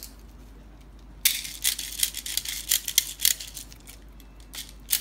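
Plastic BBs being pushed from a speed loader into a gas pistol magazine: a quick, irregular run of small clicks and rattles starting about a second in, easing off past the middle, with a few more clicks near the end.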